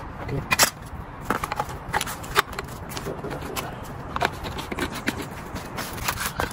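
Irregular clicks and knocks of plastic irrigation valve parts and PVC pipe fittings being handled and screwed together by gloved hands.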